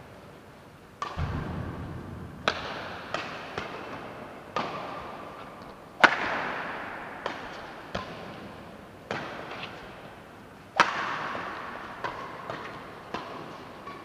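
Badminton rackets striking a shuttlecock back and forth in a rally, a string of sharp cracks each ringing on in the hall's echo, with two harder hits about six and eleven seconds in. A low thud comes with the first hit, about a second in.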